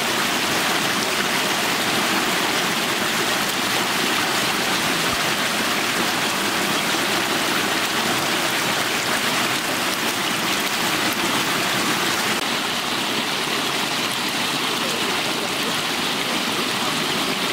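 River water rushing and splashing steadily over a slatted bamboo fish-trap mat.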